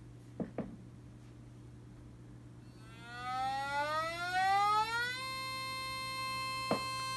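Siren tone from a Federal Signal SiraTone siren amplifier, now putting out a signal again on new 2N5886 output transistors. A few seconds in, the tone rises in pitch for about two seconds, then holds as one steady tone, over a low steady hum. A few clicks come before it and one more near the end.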